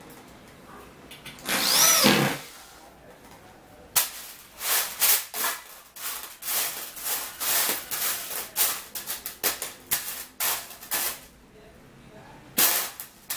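Electric drill spinning up briefly about two seconds in, its motor whine rising and then falling. Then screws and metal fittings clinking and rattling in a steel tray as a hand picks through them, many small sharp clicks.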